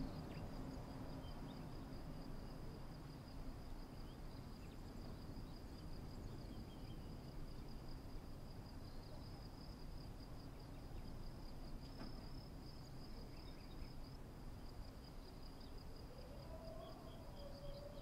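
Insects trilling steadily in a high, evenly pulsing chirr over a low outdoor rumble. Near the end a faint tone rises and then falls away.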